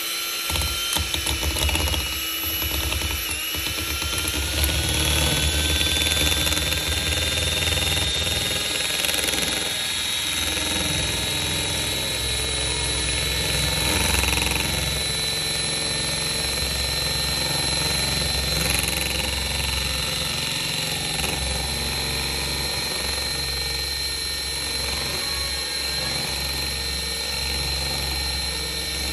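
Electric hand mixer running on speed 5, its beaters whipping chilled shea butter body butter in a bowl. A steady, high motor whine rises a little in pitch over the first few seconds, then holds level over a low hum.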